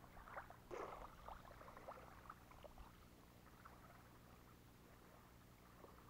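Near silence: faint outdoor background with a few soft clicks and rustles in the first three seconds, one a little louder about a second in.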